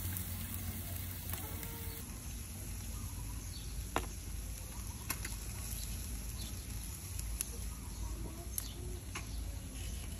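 Wood charcoal smouldering in a clay bucket stove under grilling fish, giving a few scattered sharp pops over a steady low background rumble.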